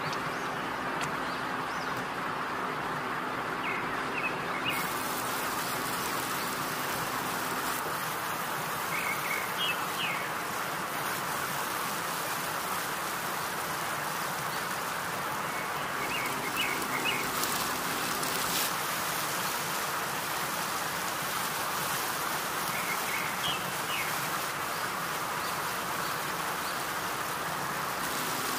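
Steady hiss with short bird chirps heard about four times over it.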